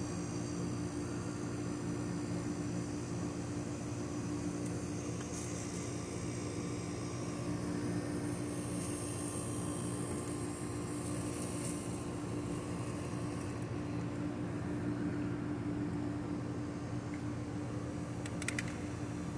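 Steady machine hum at a constant pitch. A few faint ticks come through it about 5, 11 and 18 seconds in.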